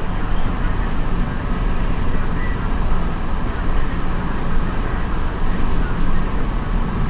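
Steady road noise inside a moving car's cabin: tyres on the pavement and wind past the windows, mostly a low rumble.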